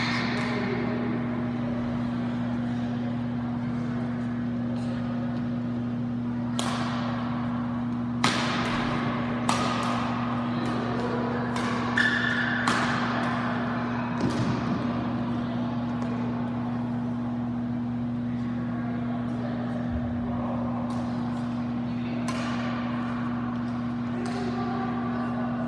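Badminton rally: a series of sharp racket strikes on the shuttlecock, irregularly spaced about a second or two apart, over a steady low hum in the hall.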